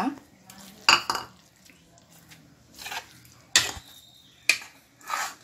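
Steel spoon scraping and knocking against a non-stick kadai while stirring a thick paste: about six short, separate scrapes and clinks, roughly a second apart.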